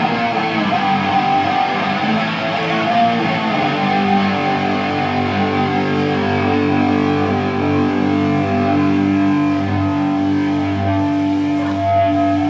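A live rock band's amplified electric guitar and bass guitar playing loud sustained notes that shift in pitch every second or two, over a steady low bass drone.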